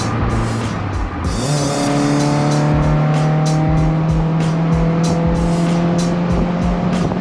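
Music with a steady drum beat over a VW Golf 1's 1.8 16V engine on twin Weber carburettors, running at high, steady revs.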